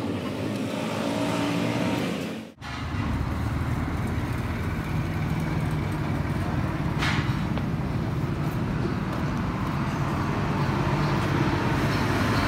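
An engine running steadily, a low hum under a constant noise, with a brief drop-out about two and a half seconds in.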